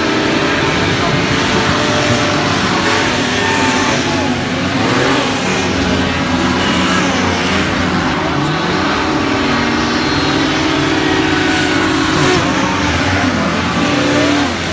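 Engines and thrust fans of several Formula 1 racing hovercraft running hard as they race past, their pitch rising and falling as the engines rev.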